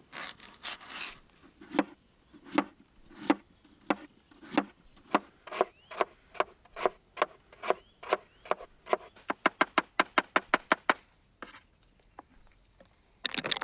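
Knife chopping ingredients on a wooden cutting board: single knocks at first, speeding up to several strokes a second, then stopping.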